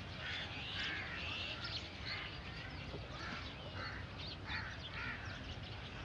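Crows cawing repeatedly amid other short bird calls, over a steady low rumble.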